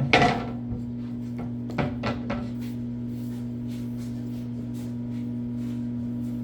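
Wooden knocks and clatters as pieces of black walnut are handled, the loudest just after the start and a few more about two seconds in, over a steady machine hum.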